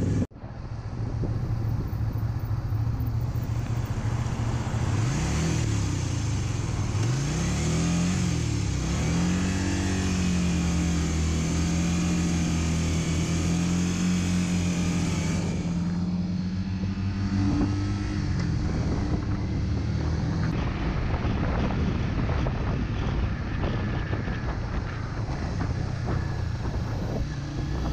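Motorcycle engine running while riding in traffic, its pitch rising and falling several times as it accelerates through the gears, then holding steady at cruising speed.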